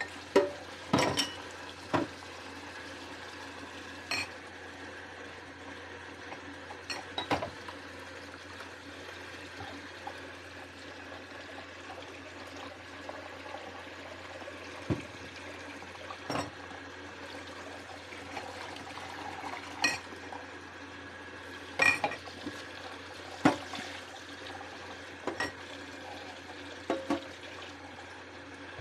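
Dishes being washed by hand at a sink: a steady rush of running water, with irregular clinks and clatters of dishes, glass and cutlery being handled about a dozen times.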